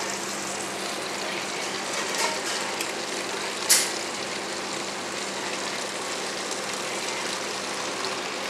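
Water running from a beverage dispenser's tap into a plastic water bottle, filling it steadily, with one short sharp crackle about three and a half seconds in. A steady low hum runs underneath.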